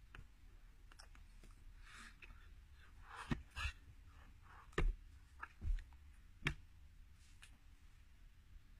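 A few scattered light taps and clicks, about five or six, mostly in the middle of the stretch, over a faint low room hum.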